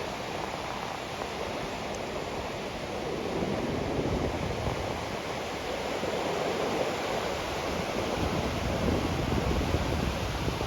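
Sea waves washing onto a sandy beach, the surf growing a little louder about a third of the way in, with wind buffeting the microphone.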